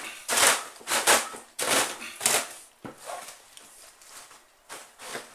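Dry, hard bread pieces crunching and rustling inside a cotton pillowcase as it is pressed and folded by hand: four crackly bursts about half a second apart, then a quieter stretch and one more burst near the end.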